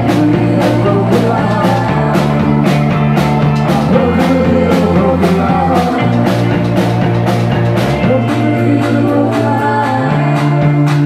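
Live rock band playing: electric guitars, bass guitar, keyboard and drum kit, with a steady drum beat and the bass line moving to a new note about every two seconds.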